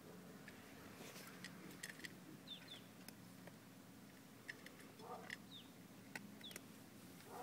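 Near silence with a low steady hum, broken by a few short, faint high chirps from a small bird, each falling in pitch, and scattered faint clicks.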